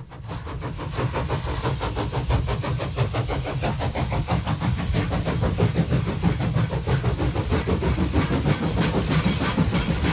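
Toy train engine running along a wooden train-set track: a steady, fast rattle of clicks over a low rumble, building up over the first second.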